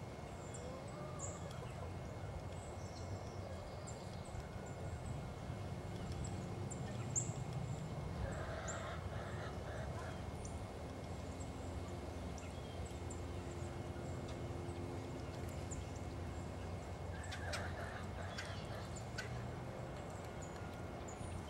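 Outdoor bird sounds: short high chirps scattered throughout over a steady low rumble, with louder bursts of calling about eight and seventeen seconds in.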